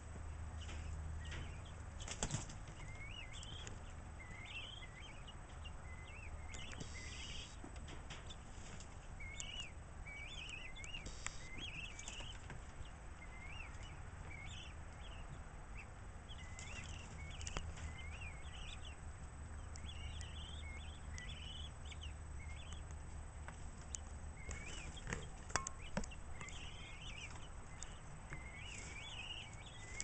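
A flock of guinea fowl calling on and off with short rising-and-falling chirps, several in quick succession at a time. A few brief knocks or flutters break in now and then.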